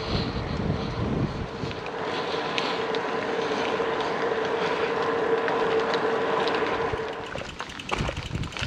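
Wind rushing over the camera microphone while riding a bicycle along a road, with a steady humming tone through most of it. It eases about seven seconds in, leaving a few light clicks.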